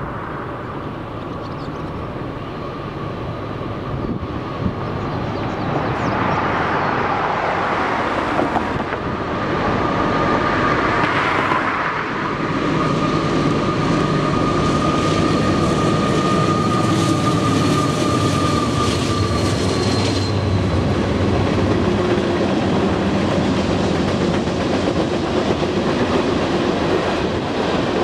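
Freight train approaching and passing, led by a Union Pacific GE AC6000CW diesel-electric locomotive. Its engine sound builds and is loudest as it comes by about halfway through, with a steady high whine that stops about two-thirds of the way in. Then tank cars roll past with rhythmic wheel clatter.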